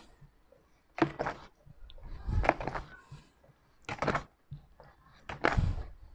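A paddle beating thick, freshly churned sorbetes in a metal can packed in ice, making a series of dull thuds and squelches, about one a second.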